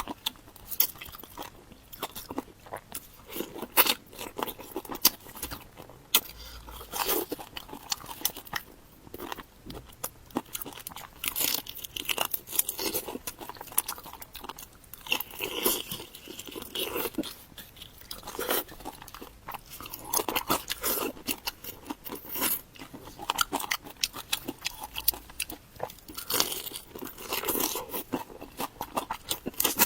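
Close-miked mouth sounds of someone biting and chewing crunchy food: irregular crisp crunches and crackles, with wetter chewing between bites.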